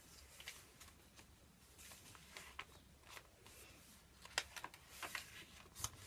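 Faint rustles and light taps of paper as the pages of a handmade junk journal are turned and handled by hand, with a few sharper paper sounds in the second half.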